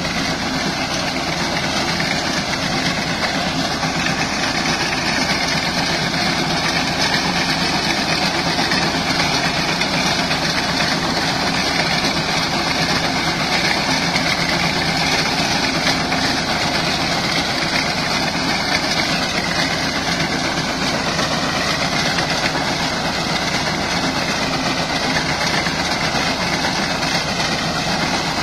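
Tractor engine running steadily under load while it drives a front-mounted reaper through standing wheat, the engine and the cutter mechanism making one continuous, unbroken noise.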